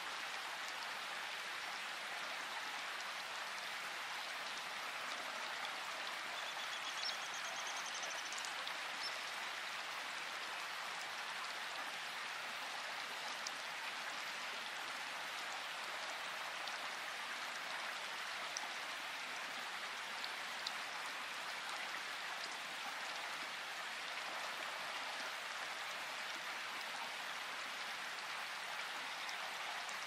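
Steady tropical downpour: rain falling evenly, with a few sharper drops standing out. A brief faint high trill sounds about seven seconds in.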